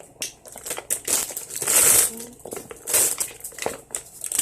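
Packing wrapping being pulled off a handbag and crumpled in the hands, crinkling and rustling in irregular bursts, loudest a little before halfway through and again near three seconds.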